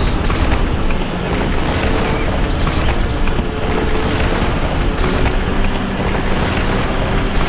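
Cartoon sound effect of a heavy vehicle's engine running steadily, a loud, continuous, noisy rumble.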